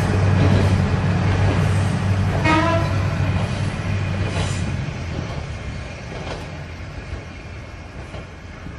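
Single-car KiHa 200-series diesel railcar on the Kominato Railway drawing away, its engine drone fading steadily. A short, tuneful toot sounds about two and a half seconds in.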